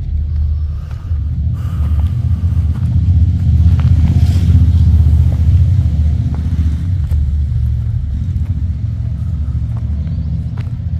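Loud low rumble, swelling to its loudest about four to five seconds in and easing off after.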